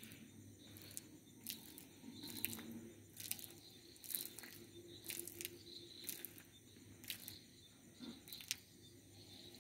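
A stream of urine splattering onto sandy ground: faint and uneven, with small sharp splashes about once a second.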